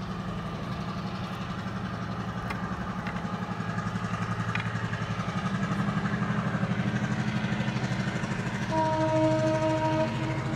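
An engine running steadily at idle, a low hum with a fast even throb. A held tone sounds for about a second near the end.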